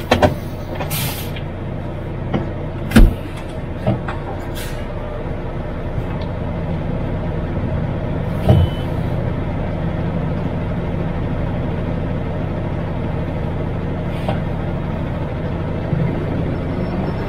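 MAN TGX truck's diesel engine running steadily, heard from inside the cab. Several clicks and knocks come in the first few seconds, the loudest about three seconds in, with a short hiss about a second in.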